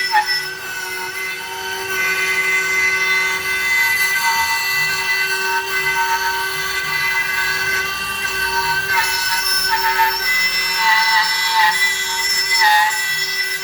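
CNC router's 1 hp spindle running at full speed with a steady high whine while the router cuts a 15 mm workpiece. The stepper motors driving the axes add short tones that slide in pitch as the moves speed up and slow down.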